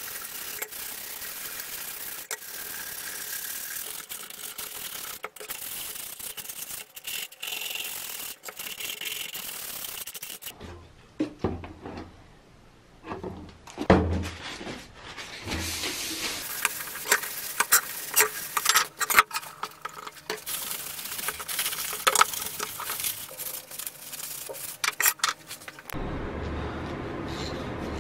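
Electric detail sander running steadily against the steel of a helmet for about ten seconds, then stopping. After that come irregular rubbing, knocking and clicking as the bare metal is handled and wiped down, with one sharp knock in the middle, and a steady low hum in the last two seconds.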